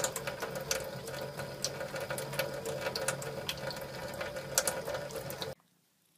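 Kitchen faucet running in a thin stream into a stainless steel sink while a cat drinks from the stream, with irregular sharp clicks and splashes over the steady rush of water. The water sound cuts off suddenly near the end, leaving near silence.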